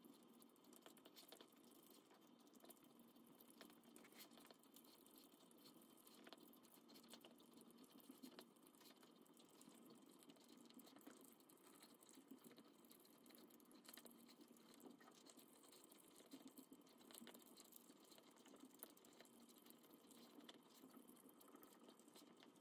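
Small dog eating wet dog food from a stainless steel bowl: quiet, quick licking and chewing, with many small clicks of tongue and teeth against the metal.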